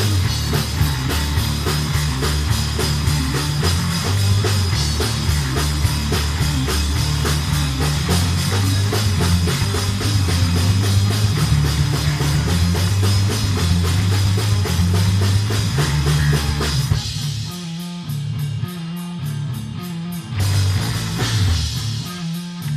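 Rock band playing live and loud with electric guitars, bass guitar and drum kit. About seventeen seconds in the full band drops out into a quieter, sparser break of short rhythmic stabs, with one brief fuller burst near the end.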